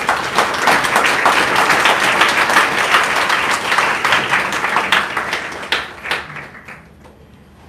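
Applause from a small audience, steady for several seconds and then dying away to a few last scattered claps about six seconds in.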